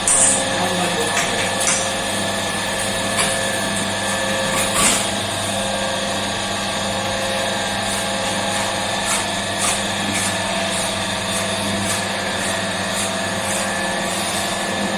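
A steady motor hum with several fixed tones, with a few sharp clicks in the first five seconds and light ticks, roughly one or two a second, in the second half.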